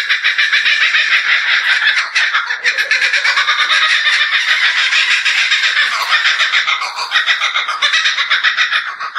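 Kookaburra's laughing call: a long, loud, unbroken run of rapid cackling notes.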